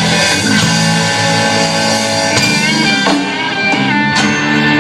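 Live country-rock band playing an instrumental passage: guitar over drums, with no singing.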